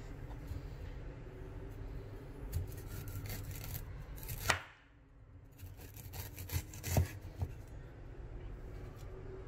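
Kitchen knife slicing the skin off a ginger root on a wooden chopping board: scraping cuts with a few sharp taps of the blade on the board, the loudest about four and a half and seven seconds in.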